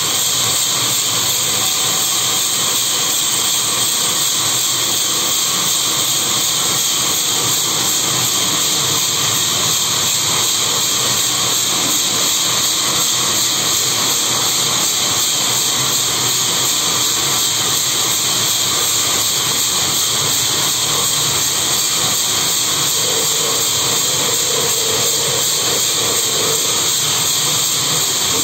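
Loud, steady hiss that holds the same level throughout, with no strokes or changes.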